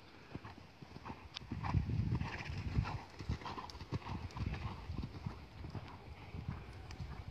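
Rhythmic hoofbeats of a ridden horse on sand arena footing, loudest about two seconds in as the horse passes close, then softer as it moves away.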